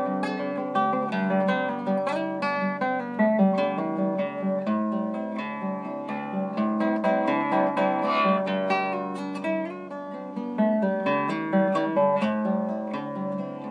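Nylon-string classical guitar played solo fingerstyle: a steady stream of plucked notes over held bass notes.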